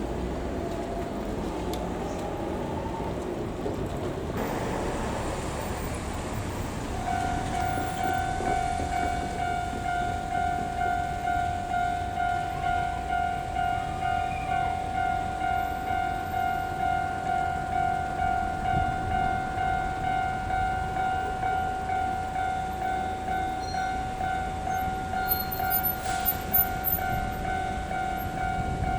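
Train noise from the track for the first several seconds. About seven seconds in, a Japanese level crossing's electronic warning bell starts and rings steadily as an even, repeating two-tone ding of about one and a half strikes a second, signalling that a train is approaching and the gates are coming down.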